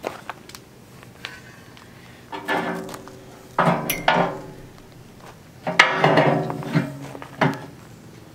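Steel BXpanded Piranha tooth bar clanking and scraping against the steel loader bucket's cutting edge as it is fitted on by hand. The metal knocks come in three bouts with some ringing, the loudest about six seconds in.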